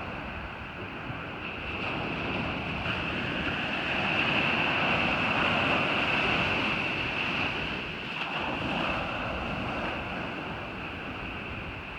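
Ocean surf washing onto a beach, a steady hiss that swells and then eases off about two-thirds of the way through, with wind buffeting the microphone.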